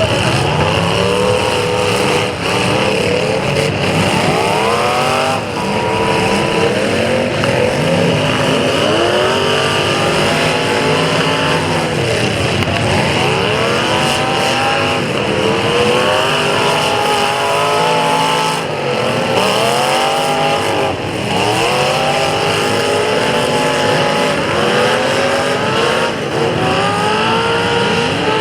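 Several demolition derby car engines revving hard at once, their pitch rising and falling over and over as the cars accelerate and back off.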